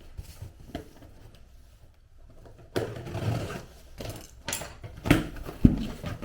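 Items and packaging being handled: faint clicks at first, then rustling and rubbing from about three seconds in, with two sharp knocks near the end as things are set down.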